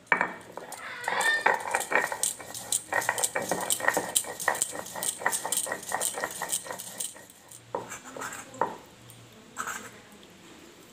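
Stone grinding slab and stone roller (sheel-nora) crushing poppy seeds and green chillies into posto paste: rapid rhythmic scraping strokes, about four or five a second. The strokes stop about seven seconds in, and a few single scrapes follow.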